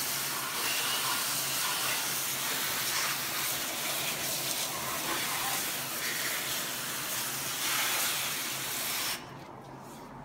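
Low-pressure water from a hose spray gun hissing as it rinses an engine bay, the spray spattering over the engine cover, hoses and wiring. The spray cuts off suddenly about nine seconds in.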